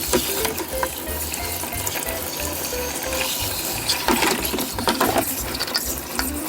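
Tap water running and splashing as a vacuum cleaner filter is washed, louder for about a second around four seconds in. Light background music plays over it.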